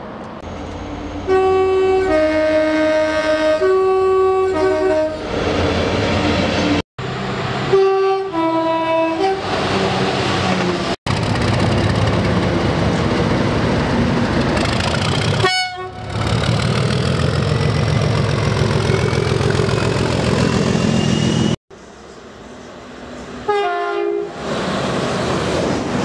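Train horns in several separate clips cut together abruptly, each a two-tone sequence of alternating high and low notes. In the middle stretch a British Rail Class 37 diesel locomotive runs past with its engine running and gives one short horn blast.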